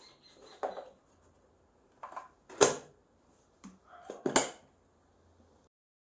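Short plastic clicks and knocks as a dust bag and its plastic holder frame are handled and fitted into a canister vacuum cleaner's dust compartment. The two loudest come about two and a half and four and a half seconds in.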